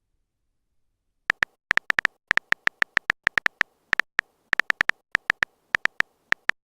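Phone keyboard typing sound effect: a quick, irregular run of short high clicks, starting about a second in, as a text message is typed out.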